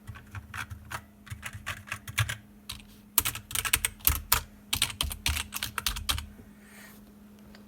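Typing on a computer keyboard: irregular key clicks, in fast runs in the middle, stopping about six seconds in.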